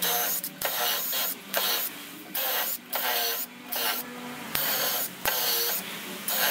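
Cordless driver driving screws into timber in a string of short bursts, the motor's pitch rising and falling with each squeeze of the trigger.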